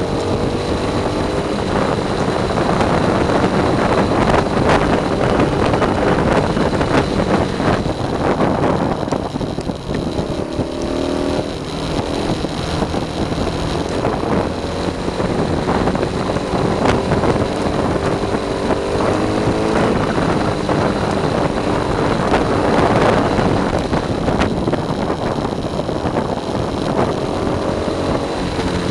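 Wind rushing over the microphone and tyres rumbling on asphalt as a Catrike Speed recumbent trike descends fast, with a faint whine that rises and falls in pitch several times.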